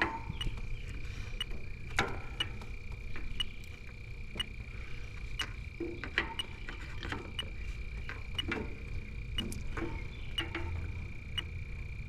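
Fieldpiece DR58 heated-diode refrigerant leak detector ticking steadily, about once a second, over a steady high tone. The slow, even tick is its idle rate, meaning no refrigerant is being picked up. A few knocks come as the probe bumps against the unit.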